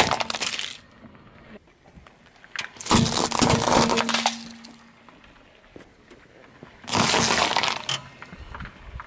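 A car tyre rolls over and crushes small objects, giving three separate bursts of crunching and cracking. The first comes as it flattens a plastic piece, the second, about three seconds in, over scattered small beads, and the third, about seven seconds in, as it squashes a cucumber.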